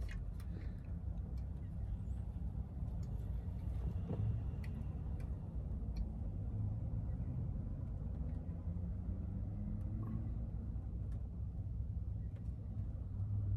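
Low, steady hum of a car idling, heard from inside the cabin, with a few faint clicks.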